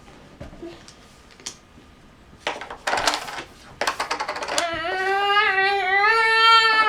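A young autistic boy's vocal stim: a breathy rasp, then a short rattly creak that turns into one long high-pitched vocal tone, held for about two seconds and rising slightly at the end. A few light clicks come earlier.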